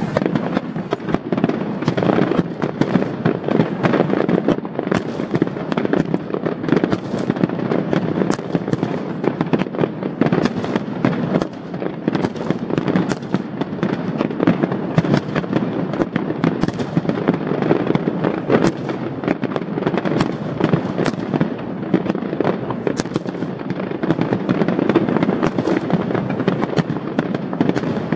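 Fireworks display: a dense, unbroken barrage of sharp bangs and crackling as many shells burst in quick succession.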